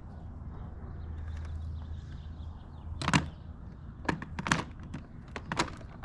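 Sharp plastic clicks and knocks, about six of them in the second half, as the bagless upright vacuum's dust container is handled.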